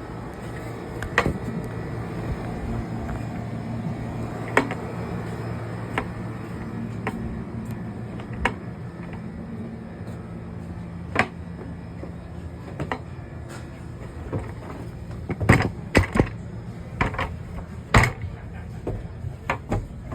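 Steady low hum of room ambience with scattered sharp knocks and clicks, a cluster of louder ones near the end.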